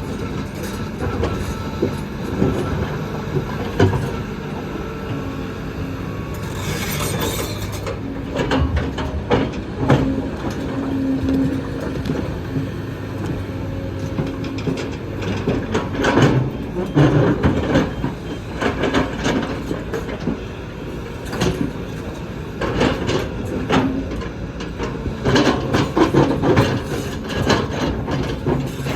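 Kobelco excavator at work: its diesel engine running steadily under load, with frequent metallic clanks and knocks of the bucket, tracks and rocks.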